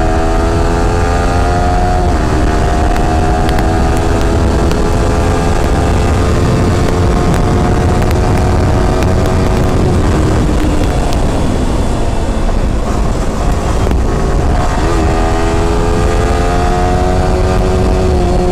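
Yamaha R15 V4's 155 cc single-cylinder engine under hard acceleration, its note rising and breaking at a gear change about two seconds in. It eases off around the middle and picks up again after another shift near fifteen seconds. Heavy wind rumble on the microphone lies under the engine at highway speed.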